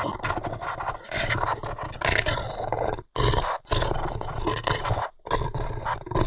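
Designed monster roar sound effect for a large beast such as a dragon: rough, deep growling roars in three long stretches, with short breaks about three and five seconds in.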